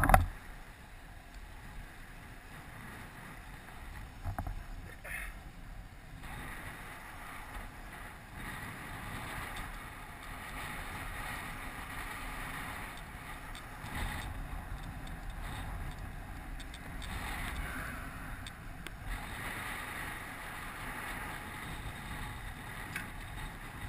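Wind buffeting a helmet-mounted camera and downhill mountain bike tyres rolling on asphalt: a steady rushing noise that fills out about six seconds in, with a sharp knock at the very start.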